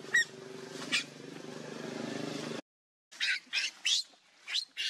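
Shrill squeals of a baby macaque: two short ones over a steady engine hum, then, after an abrupt cut about two and a half seconds in, a quick run of about five squeals.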